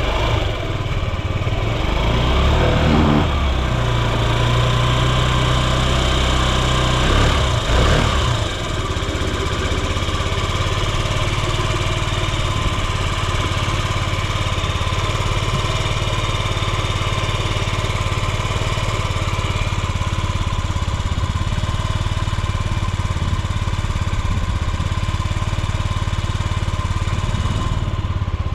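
Yamaha Gear (UA08A) scooter's 50cc four-stroke single-cylinder engine running, blipped up twice in the first several seconds, then idling steadily. The engine runs quietly, with no abnormal engine noise.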